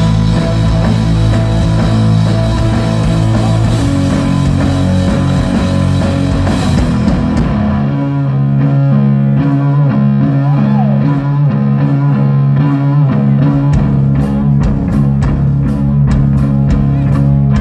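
Stoner rock trio of electric guitar, bass guitar and drums playing live through stage speakers. About eight seconds in, the full band drops back to a sparser guitar and bass riff. A few seconds before the end, regular cymbal strikes come back in.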